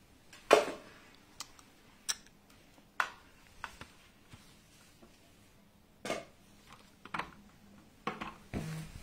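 Scattered short knocks and clinks of objects being handled and set down, about ten in all, the loudest about half a second in.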